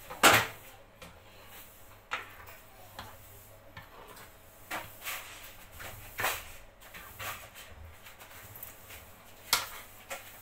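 A cooking spoon stirring and scraping food in a frying pan, with scattered knocks of the spoon against the pan, the loudest right at the start. Near the end the spoon is set down on a cutting board with a clack.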